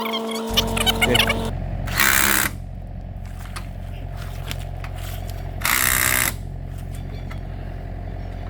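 Small portable air compressor switching on about half a second in and running steadily, likely inflating the freshly plugged tyre, with two short bursts of hissing air.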